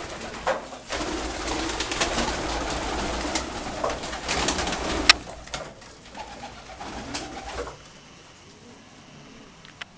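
Saxon fancy pigeons cooing, with rustling and sharp clicks among them. The sound is busiest for the first half and quietens after about eight seconds.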